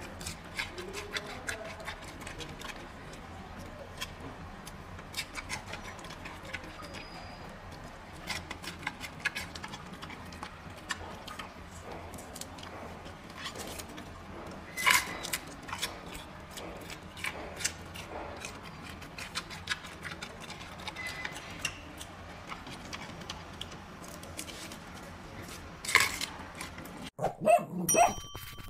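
Giant panda chewing and crunching food, a steady run of sharp crunches with a few louder bites. Near the end it gives way to a short chiming sound effect.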